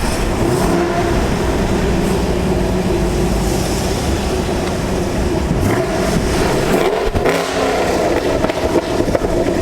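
Straight-piped Chevy SS (Holden Commodore) V8 exhaust droning steadily while driving, its pitch briefly sliding up and down about six to seven seconds in as the revs change.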